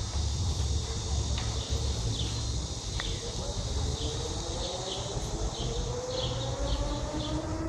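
Outdoor ambience: a steady high insect buzz over a low rumble, with short high chirps repeating from about two seconds in. A faint tone rises slowly in pitch through the second half.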